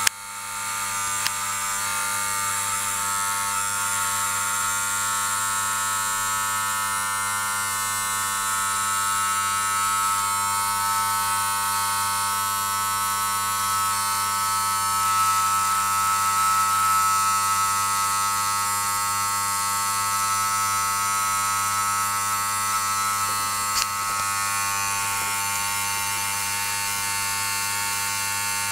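An РЕТ-3000 current-injection set drives high test current through an A3144 circuit breaker, making a steady electrical hum and buzz with a high whine. It starts with a click, builds over a second or two, then holds steady while the breaker's release is loaded up to trip.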